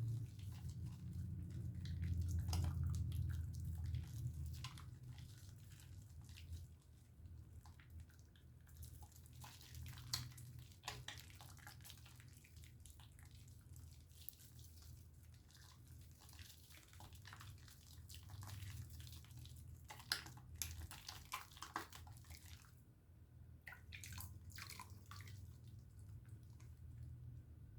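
Faint wet squishing and crackling as a wet bar of Dove soap is worked into lather, with scattered small drips and clicks.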